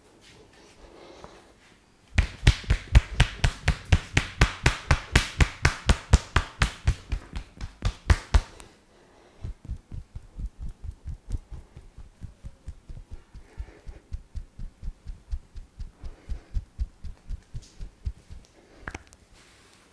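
Hands striking a person's body in a rhythmic percussion massage: sharp slaps at about four a second from about two seconds in, lasting some six seconds. After a short pause come softer, duller strokes at a similar pace, and one sharper tap near the end.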